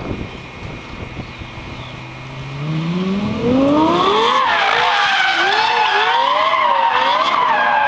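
Lexus LFA's 4.8-litre V10 running low, then revving up sharply about three seconds in and held high with the revs rising and falling, while the tyres squeal in a sustained slide.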